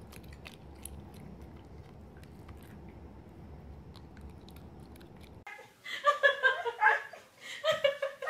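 Faint wet clicks and smacking of a baby bobcat licking and chewing food off a metal spoon, over a low hum. About five and a half seconds in it breaks off and loud laughter starts.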